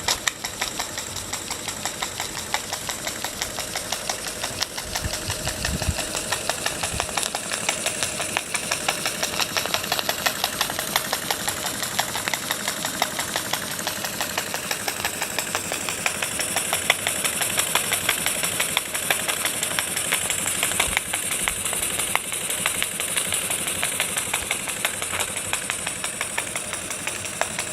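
Perseus model steam engine running steadily, with a quick, even beat of exhaust and mechanical clatter.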